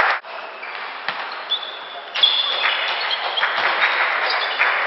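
Table tennis rally: sharp clicks of the celluloid ball off bats and table, coming one after another from about two seconds in, with short high squeaks of players' shoes on the sports hall floor.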